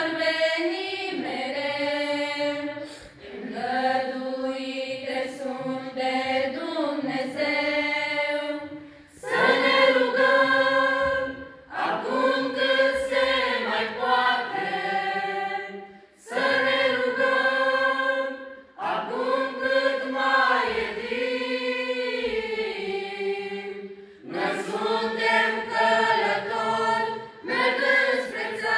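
Choir of girls and young women singing a cappella, in sustained phrases a few seconds long with brief pauses for breath between them.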